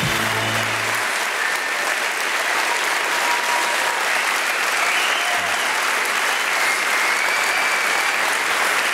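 Theatre audience applauding steadily, with the tail of the intro music fading out in about the first second.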